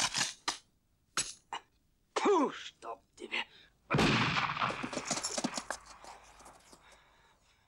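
Short metallic clicks of a Mosin–Nagant rifle being handled, with a man's brief exclamation, then about four seconds in a sudden loud noise that fades away over about three seconds.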